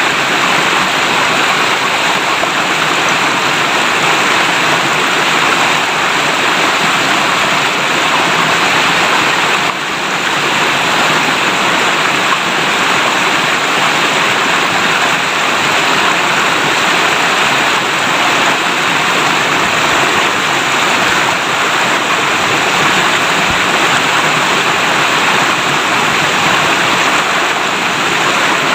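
Clear river water rushing and burbling over rocks in a steady, unbroken stream.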